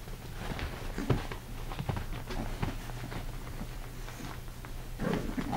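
English bulldog puppies scuffling in play on a blanket: scattered soft thumps and scratches of paws and bodies. About five seconds in, a puppy starts to growl in play.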